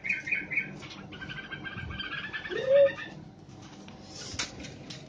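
Pet bulbuls calling and chattering in a scuffle, with a fast run of repeated notes in the middle and scattered clicks and wing flaps. A brief low rising sound about halfway through is the loudest moment.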